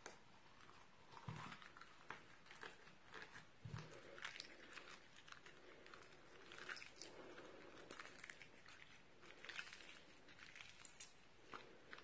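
Slime being kneaded and squeezed by hand, giving faint, irregular wet crackles and small clicking pops.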